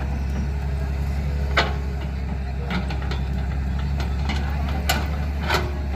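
Heavy-equipment engine running steadily at a low idle, with a few short sharp knocks now and then.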